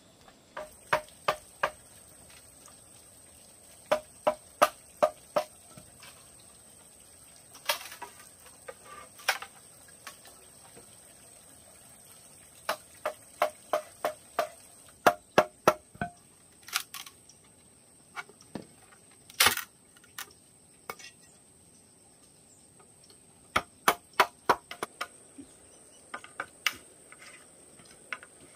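A machete blade striking bamboo in short runs of quick chops, three to six sharp knocks at a time, each with a brief ring, with pauses between the runs.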